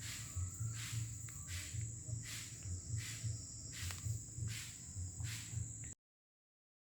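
Insects chirring with a steady high-pitched tone, over a regular soft rustle about every two-thirds of a second. The sound cuts off suddenly near the end.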